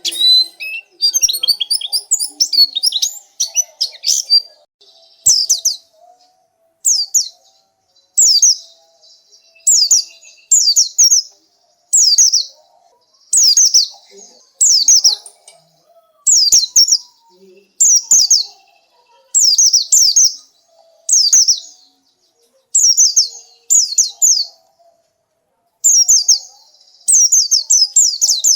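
White-eye (pleci) singing: a quick twittering run for the first few seconds, then short phrases of high, downward-sliding chirps repeated about every second or so.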